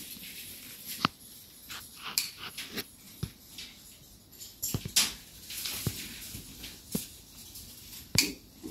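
Irregular sharp clicks and knocks of steel reinforcing bars being handled and worked on a rebar mesh, about one a second, the loudest about 5 and 8 seconds in.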